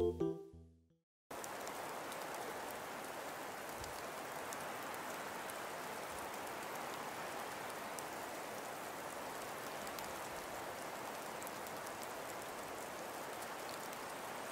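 The tail of keyboard music fades out right at the start. After about a second of dead silence, a steady, even hiss with faint scattered ticks begins and runs on unchanged.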